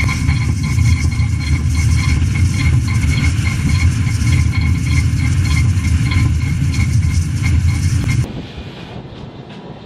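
Great Western pannier tank steam locomotive letting off a loud, steady rush of steam with a faint high tone in it, which cuts off abruptly about eight seconds in.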